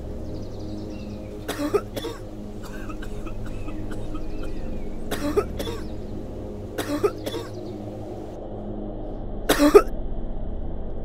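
A man coughing in four short fits a few seconds apart, the last the loudest.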